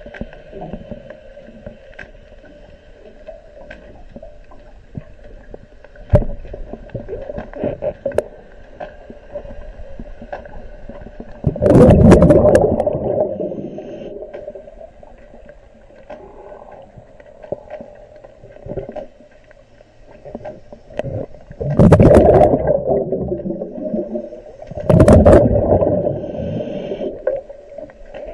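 Muffled underwater sound heard through a submerged camera: a steady low hum with a couple of sharp knocks, and three loud rushing surges of water or bubbles, one near the middle and two close together near the end.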